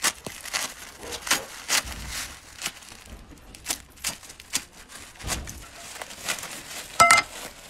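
Woven plastic sacking and tape being cut and torn off a wrapped drive shaft by hand: an irregular run of crinkling rips and rustles. Near the end there is a short, loud ringing clink.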